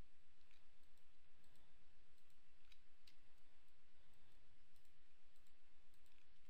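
A handful of sharp, separate clicks from a computer mouse and keyboard being worked, over a steady hiss.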